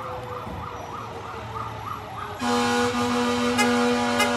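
Fire engine siren yelping, its pitch sweeping up and down about three times a second, over a lower siren tone slowly winding down. About two and a half seconds in, the fire truck's horn sounds in one long steady blast, the loudest part.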